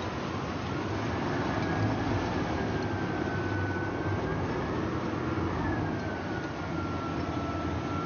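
Steady low engine drone with wind noise on the microphone. A faint high whine slowly drifts in pitch above it.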